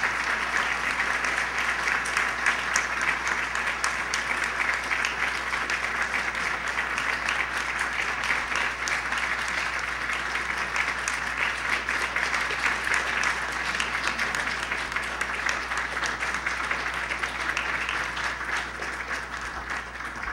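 Audience clapping: a steady patter of many hands applauding together, which begins to die away near the end.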